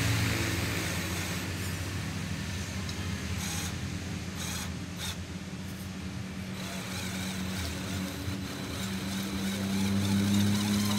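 Electric motor and gear drive of an RC scale crawler with a Toyota Land Cruiser 70 body whining steadily as it creeps up a steep slope under load. The whine eases in the middle and swells again near the end.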